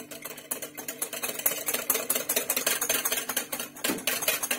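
Liquid cake batter being whisked by hand in a glass bowl: a utensil strikes the glass in rapid, even clicks.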